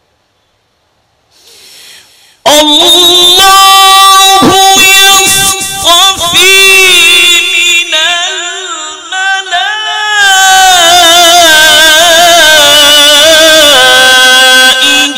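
A male qari reciting the Quran in a slow melodic chant, drawing out long held notes with wavering ornaments. After a brief silence the voice enters about two and a half seconds in, eases briefly around the middle, and carries on.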